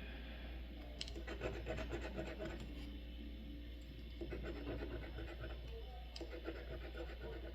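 Scratch-off lottery ticket being scratched, two bouts of quick scraping strokes over the coating, the second beginning about four seconds in.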